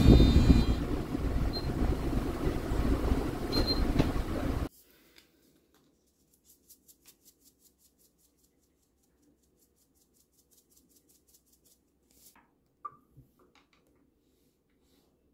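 A loud, steady rumbling noise that cuts off abruptly about five seconds in. It gives way to near quiet, with faint ticks and a couple of small clinks near the end.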